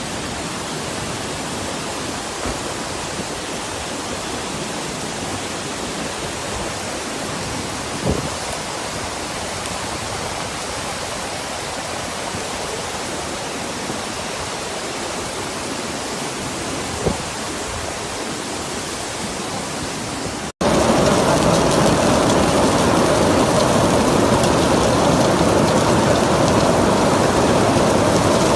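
Steady hiss of heavy rain and running floodwater. About two-thirds of the way through it cuts abruptly to a louder, denser rush of water.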